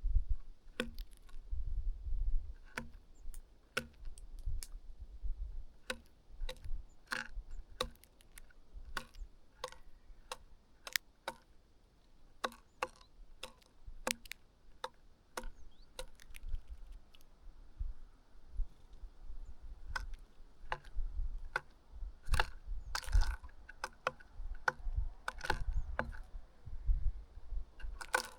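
Birds pecking at food at a feeding spot: irregular sharp taps and clicks, sometimes several a second, over a low rumble.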